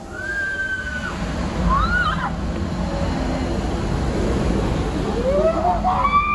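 Riders on a giant swinging pendulum ride screaming: a held shriek at the start, a short rising one about two seconds in, and a rising, then held, scream near the end, over a steady rushing noise.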